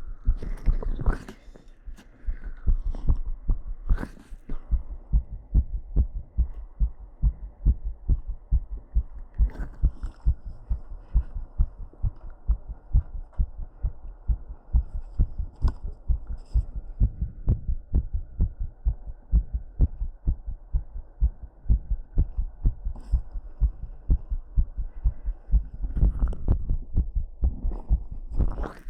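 A person's heartbeat picked up close on a microphone: a steady, quick run of low lub-dub thumps, raised by a set of squats. A few louder rustles come near the start and near the end.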